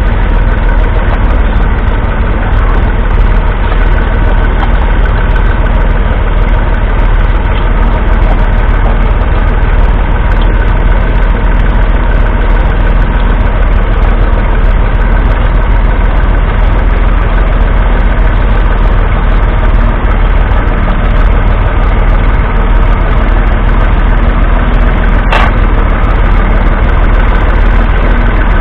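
Massey Ferguson 135's 2.5-litre three-cylinder diesel engine running steadily under load as the tractor pulls a two-furrow mounted plough through stubble. A single brief click sounds near the end.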